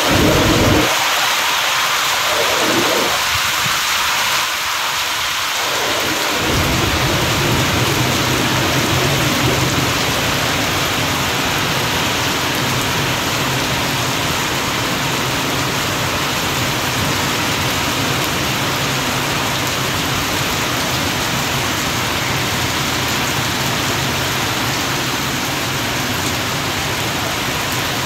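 Heavy rain pouring steadily. A low rumble joins about six seconds in and continues under the rain.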